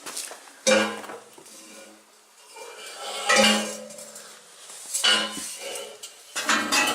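Metal clanking and rattling as exhaust pipe parts and tools are handled: several sharp knocks, each leaving a short metallic ring.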